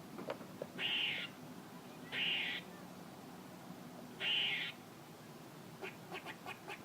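A squirrel calling: three raspy calls of about half a second each, spaced over the first four seconds, then a quick series of short clicks near the end.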